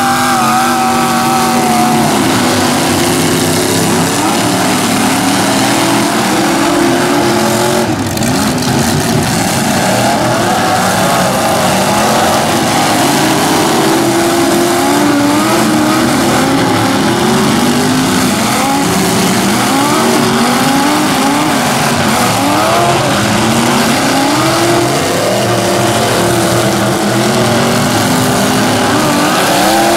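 Several demolition-derby pickup truck engines revving up and down over and over as the trucks ram each other, with a sudden bang about eight seconds in.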